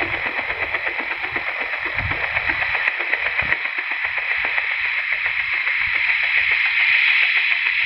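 Synthesised UH-1 Huey helicopter sound from an RC sound module, played through a bare loudspeaker: a steady hissing turbine-like band with a fast rotor chop pulsing through it, getting a little louder near the end.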